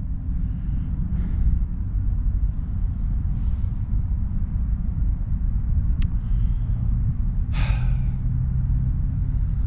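Steady low wind rumble on the microphone, with a man breathing out heavily twice, a short breath about three and a half seconds in and a louder sighing gasp near the end, and a single click around six seconds.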